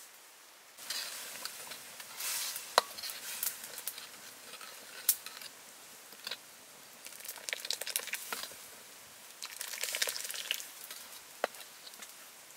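Metal ladle stirring thick curry sauce in a steel wok, with bursts of sizzling and scraping and a few sharp clinks of the ladle on the pan. It starts about a second in.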